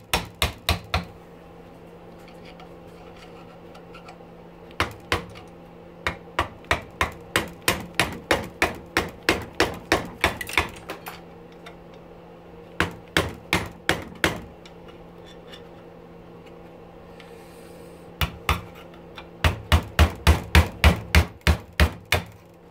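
Claw hammer striking a long steel punch, metal on metal, knocking apart a small electric pump motor clamped in a bench vise. The blows come in runs of about two a second with pauses between, and the loudest and fastest come near the end. A faint steady hum runs underneath.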